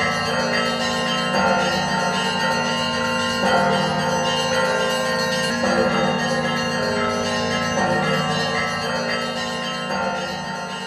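Church bells ringing, many bells sounding together, with fresh strikes about every two seconds. The ringing begins to fade out near the end.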